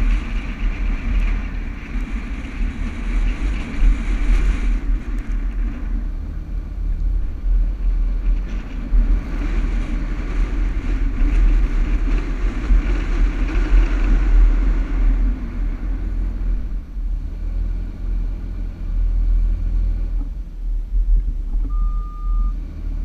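Toyota Land Cruiser driving over sand dunes: engine and drivetrain running under load with heavy wind rumble on the microphone, the engine note swelling through the middle and easing off after. A single short beep sounds near the end.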